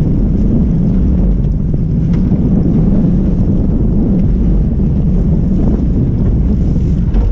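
Wind buffeting the microphone in a steady low rumble on a small open boat at sea, with waves against the hull underneath.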